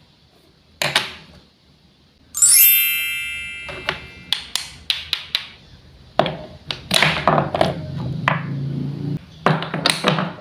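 Hard wooden clicks and knocks of toy food pieces being cut and handled. A bright ringing ping comes about two and a half seconds in and fades over about a second. A busy stretch of rattling and scraping with knocks fills the second half.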